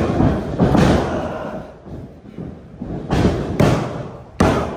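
Heavy thuds on a wrestling ring's canvas mat as wrestlers' bodies and hands hit it, each impact with a short boom from the ring. There are two near the start and three more in the last second and a half.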